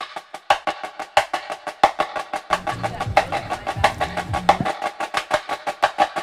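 Music with a fast, steady percussion pattern of sharp clicks, about seven or eight a second, with a low bass line joining briefly in the middle.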